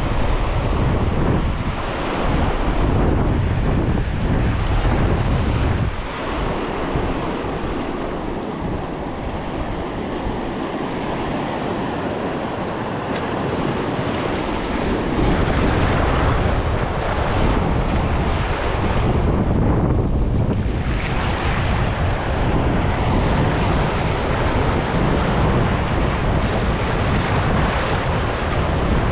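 Wind buffeting the microphone in gusts, a heavy low rumble that eases for several seconds in the middle, over the steady wash of waves.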